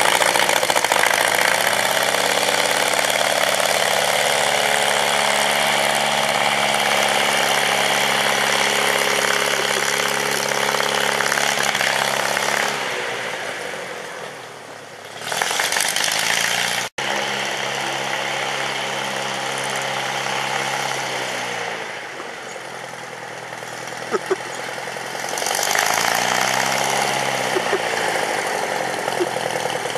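Small aircraft engine with a stub propeller running under load, pushing a wheeled snowplane frame along. The engine and propeller drone fades as the machine moves away, with a momentary dropout about halfway through, then swells again as it comes back, its pitch bending as it turns and approaches.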